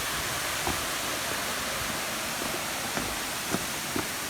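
Steady rushing of a waterfall, an even wash of water noise, with a few faint short clicks in it.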